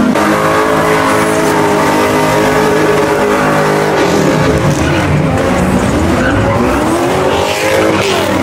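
Car engine held at high, steady revs while the rear tyres spin and smoke in a burnout. About four seconds in, it gives way to an engine revving up and down over and over as a car slides through donuts, with tyre skid noise.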